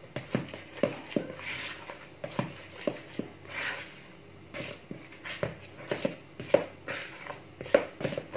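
Hand mixing flour into a soft, sticky yeast dough in a plastic bowl: irregular wet squishing and slapping, with frequent light knocks against the bowl.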